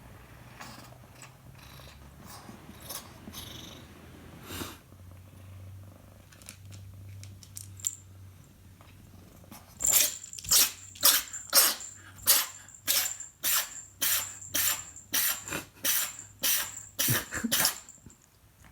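Domestic cat purring softly, then a run of about fourteen short, sharp, evenly spaced sounds a little over half a second apart, much louder than the purr, with a thin high ring beneath them.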